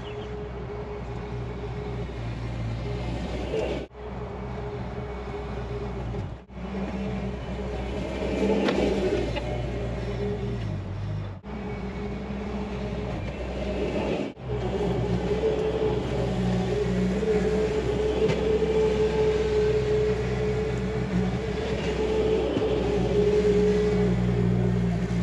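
Bobcat tracked skid steer working a box grader over a dirt trail: its diesel engine runs steadily under load with a steady whine over it. The whine grows louder in the second half as the machine comes closer. The sound drops out for an instant four times.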